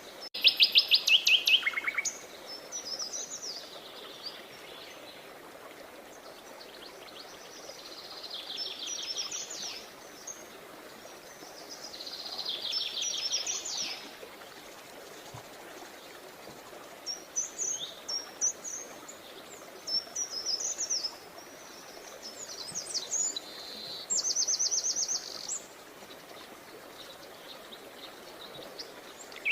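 Songbirds singing and chirping: bursts of fast, high trills and short sweeping chirps, loudest in a rapid chirp series at the start and again near the end, over a faint steady hiss.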